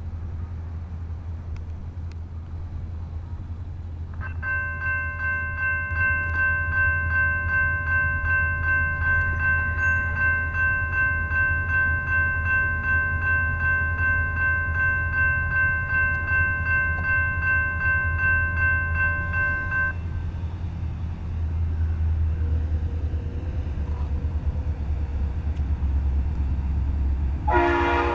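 Nathan RS-5T multi-chime air horn on an SD90/43MAC diesel locomotive, sounded in one long steady chord of about fifteen seconds, then a second blast near the end, over the low rumble of the approaching freight train.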